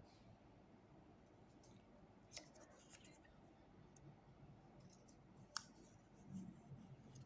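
Near silence with faint rustles and taps of paper puzzle pieces being picked up and laid down on a hard surface, including two sharper clicks, about two and a half seconds in and again about five and a half seconds in.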